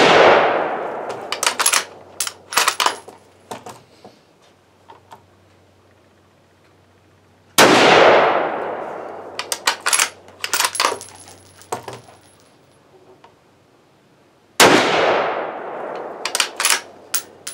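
Three rifle shots from a Savage Axis bolt-action rifle in 6.5 Creedmoor: one right at the start, then two more about seven seconds apart, each echoing and dying away over a couple of seconds. After each shot comes a quick run of sharp metallic clicks and clinks as the bolt is worked and the spent brass case drops.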